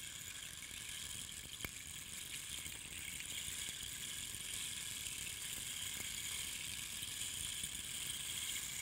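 Bamboo rain stick held on end, its beans trickling down through the pierced node walls of the dried bamboo in a steady, rain-like hiss.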